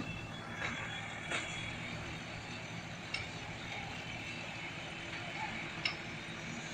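Construction-site ambience: a steady low machine hum, with a few faint sharp clinks scattered through it.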